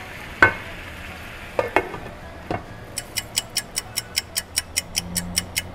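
Cubed pork belly sizzling faintly in a frying pan, with one sharp click about half a second in and a few clanks as the pan's glass lid goes on. From about three seconds in comes a quick, even ticking like a clock, about five ticks a second.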